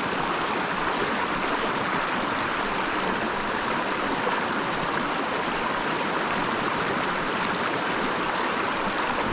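Small mountain creek running steadily: a constant, even wash of flowing water.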